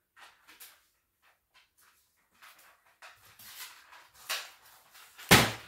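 Hard plastic gear being handled: scattered light clicks and rustles that grow busier, then a single loud knock near the end.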